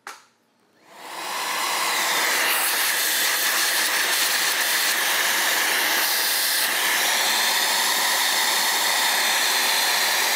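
A switch clicks, then a Milwaukee M18 3-in-1 cordless vacuum spins up over about a second and runs steadily, drawing air through the dust port of a circular saw.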